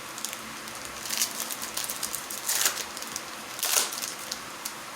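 Wrapper of a baseball card pack crinkling and tearing as it is ripped open, in about three short rustling bursts with a few small clicks between.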